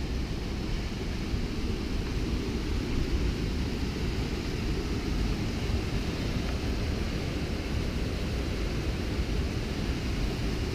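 Steady roar of rushing water from a creek cascading through a narrow rock gorge, a low even rush with no breaks.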